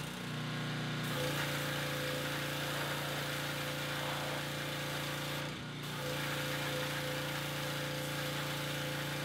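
Small gas engine of a Champion pressure washer running steadily under load, with the hiss of the high-pressure spray blasting mud off a skid steer's tracks. The spray hiss drops out briefly near the start and again about five and a half seconds in.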